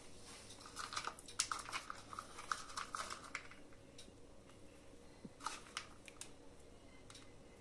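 Faint rustling and light clicking of hazelnuts being handled and scattered over a semolina dessert, clustered in the first few seconds with one more brief rattle near the middle.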